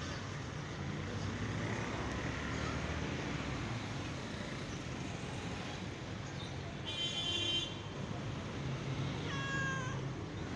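Domestic cat meowing once near the end, a short call that falls slightly in pitch, over steady background noise. A brief high-pitched squeak about seven seconds in.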